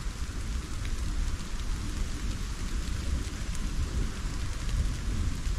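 Steady rain, with a few faint drop ticks and a deep, restless low rumble underneath.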